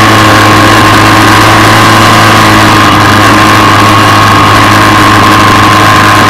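Ducati 748's 90-degree V-twin engine running hard at steady revs, heard loud from onboard the bike.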